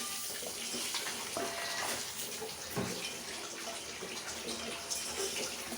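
Spice and ginger-garlic masala sizzling steadily in hot oil in a pot while it is stirred, with a few faint scrapes. The masala is being fried until the oil separates.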